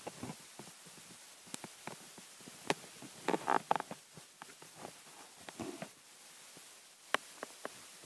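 Scattered sharp clicks and rustling, with a louder cluster of rustling about three and a half seconds in.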